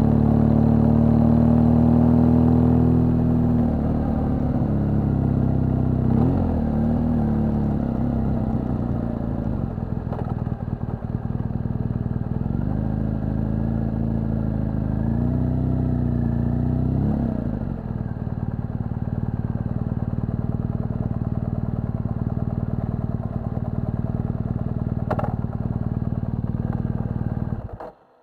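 BMW R1200GS boxer-twin engine running at low speed, its pitch dipping and rising a few times as the throttle is eased and opened, then running steadily before cutting off abruptly near the end.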